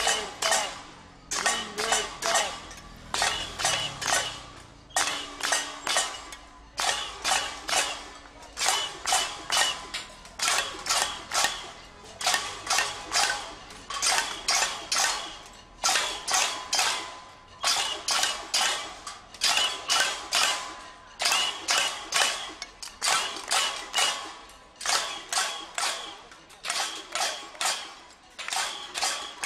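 A metal pot beaten with a spoon in a steady rhythm, about three ringing clangs a second: pot-banging (cacerolada) protest noise.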